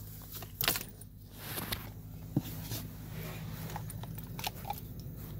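Scattered small clicks, rattles and rustles of a person getting out of a pickup truck's cab and stepping onto grass, with a phone being handled. A low steady hum runs underneath.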